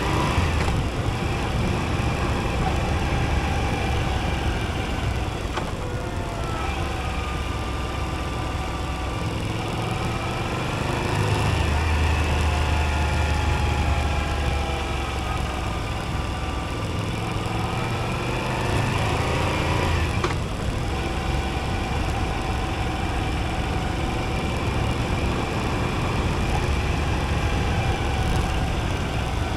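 Moto Guzzi V85TT's air-cooled transverse V-twin engine running under way. Its note rises and falls several times with the throttle and breaks briefly about six seconds in and again about twenty seconds in, over a steady rush of wind noise.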